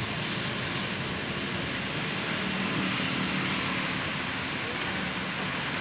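Heavy rain falling with wind, a steady hiss with no break.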